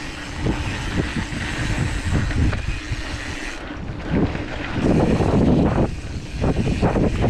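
Mountain bike rolling fast down a dirt singletrack: the tyres rumble on the dirt and the bike rattles and knocks over bumps, with wind buffeting the bar-mounted camera's microphone. It gets louder about five seconds in.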